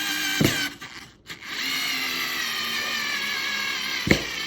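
Worx 4-volt cordless screwdriver's motor whining steadily as it drives a screw into pre-drilled red oak. It runs in two bursts: the first stops about a second in and the next starts half a second later. There is a sharp click about half a second in and another near the end.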